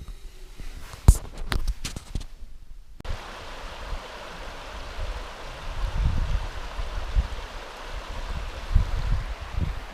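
A few sharp knocks and clicks for the first few seconds, then a steady outdoor rushing noise with low, gusting rumbles of wind on the microphone.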